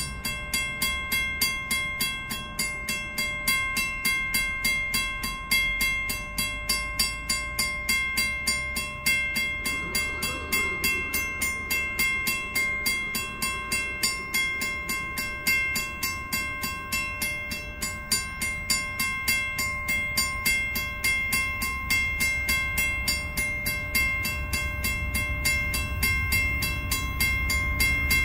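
Railway level-crossing bell ringing in rapid, steady strikes while the crossing is active. A faint train horn sounds about ten seconds in, and near the end the low rumble of an approaching VIA Rail P42DC diesel locomotive grows louder.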